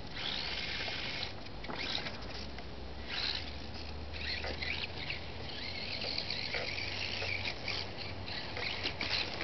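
High-pitched electric motor whine of a micro-scale RC off-road car, rising and falling in pitch as it is driven around the track.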